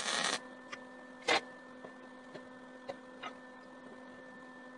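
Arc welder tacking steel sheet: a sizzling burst of about half a second at the start, then a shorter sharp burst about a second later. A few light ticks follow over a steady hum.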